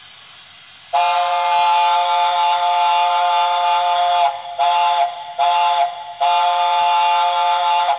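Sound decoder of a Dapol Blacklabel Gresley A4 model steam locomotive playing its chime whistle through the model's speaker: one long blast, two short ones, then a medium one.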